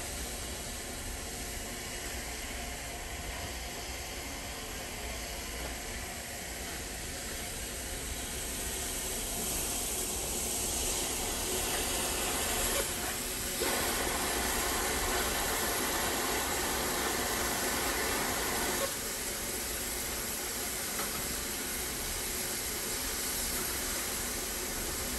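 Steady steam hiss from a standing steam locomotive, Southern Railway S15 No. 825. The hiss grows louder about halfway through for around five seconds, starting and stopping abruptly.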